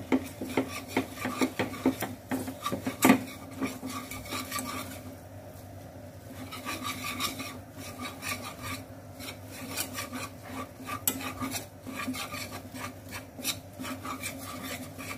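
Wire whisk scraping and clicking against a metal pan in quick strokes as butter and flour are beaten together into a roux for white sauce. There is one louder knock about three seconds in and a short lull in the middle.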